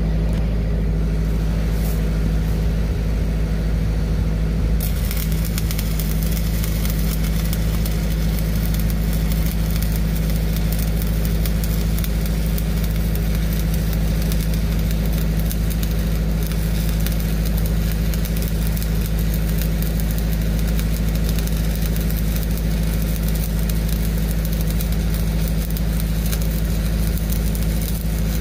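Stick-welding arc crackling steadily as a cap pass is run uphill with a 3/32 Excalibur rod, striking up about five seconds in. Under it runs the steady drone of a Lincoln Pipeliner 200D diesel engine-driven welding machine.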